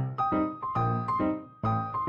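Background music: piano notes and chords struck in a steady, bouncy rhythm, each note ringing and fading before the next.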